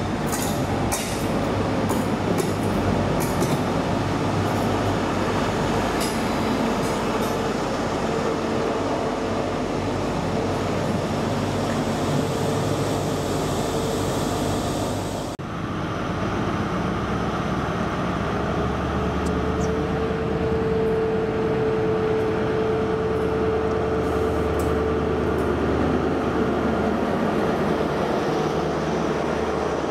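GWR Class 43 HST power cars with MTU diesel engines: the train runs into the platform with steady rail and wheel noise as the coaches roll past, a few clicks at the start and a held tone partway through. After a sudden cut halfway, a power car stands alongside with a steady low engine drone and a held whine.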